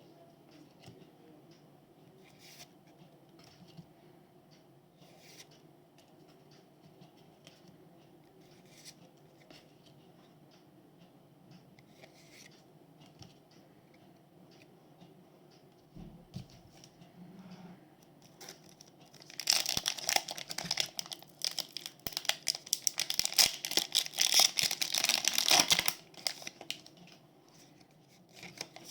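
Foil wrapper of a Pokémon booster pack being torn open and crinkled: about six seconds of loud, dense crinkling and tearing starting about two-thirds of the way in, after faint handling taps and rustles.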